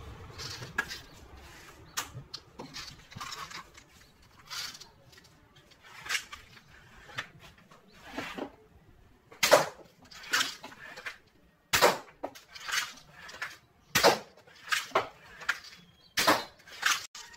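Irregular handling noises, short knocks and rubs, as green elastic tubing is worked onto the tips of a wooden crossbow's limbs. The sounds come in quick clusters, louder from about halfway through.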